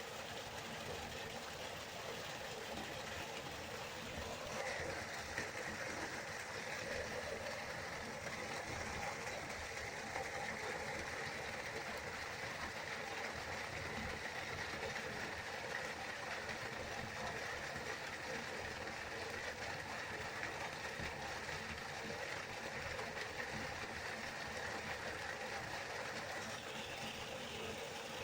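River water flowing and rushing steadily. A brighter, hissier layer of the flow comes in about four seconds in and drops away near the end.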